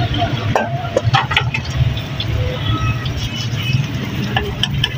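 Steady low rumble of street traffic, with scattered clinks and scrapes of a metal spoon on a flat steel griddle as beaten egg is spread on it.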